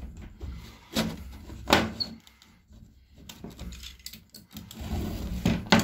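Spline roller pressing a 5 mm rubber spline into the channel of an aluminium insect-screen frame: a low rolling rub with three sharp clicks and knocks of the tool on the frame.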